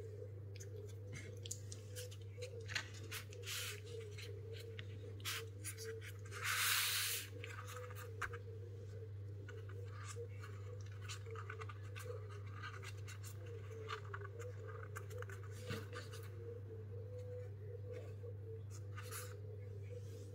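Food-preparation handling sounds: scattered short scrapes and taps, with one longer, louder scrape or rustle about seven seconds in, over a steady low hum.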